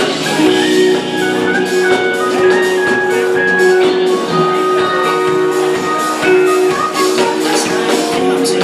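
Live rock band playing an instrumental passage: held guitar tones and melodic lines over drum kit and cymbals, with the hall's echo.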